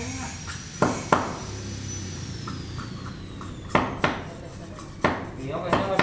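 Hammer striking wood: about six sharp knocks in three rough pairs, near the start, in the middle and near the end.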